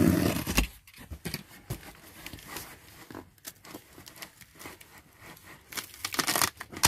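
Cardboard box being opened by hand: a thump at the start, a utility knife scraping along the packing tape, then fingers scraping and prying at the cardboard flaps, with a louder burst of tape tearing and cardboard rasping near the end.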